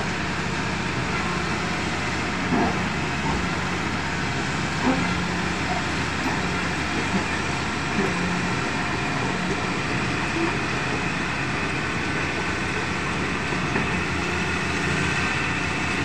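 Crawler bulldozer's diesel engine running steadily as it pushes sand through a shallow river, with rushing river water.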